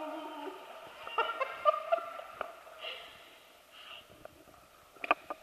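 A wet dog panting and snuffling close by, with a few sharp clicks near the end.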